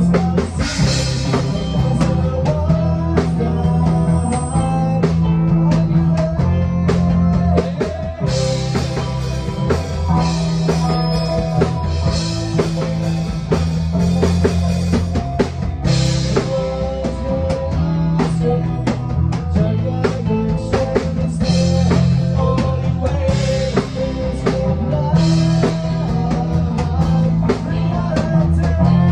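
A band jamming, with a drum kit keeping a steady beat under guitar.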